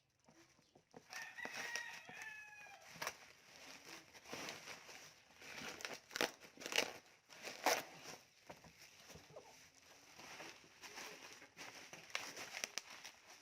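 Amplifier packaging being handled during unboxing: irregular rustling, scraping and sharp knocks, with a squeaky sliding tone about one to three seconds in.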